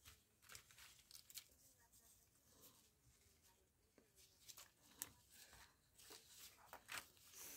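Faint rustling and light clicks of ribbon being handled and folded by hand: red grosgrain and satin ribbon looped into a bow.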